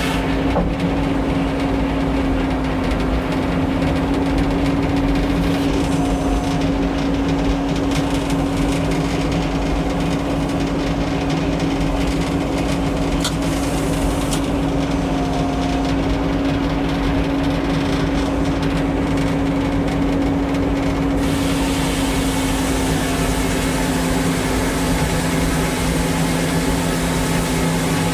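Old automatic Frick sawmill running steadily, a constant machine hum that holds one pitch throughout. A higher hiss drops away about half a second in and returns about 21 seconds in.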